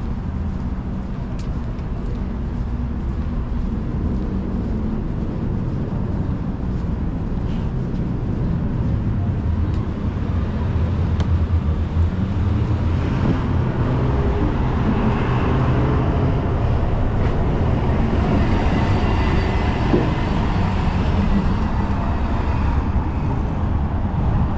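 Steady street traffic noise from passing cars, growing louder about halfway through.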